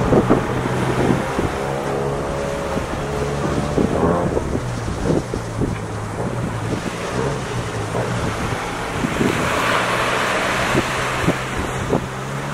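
An engine running steadily at a low idle, with wind buffeting the microphone and scattered short knocks.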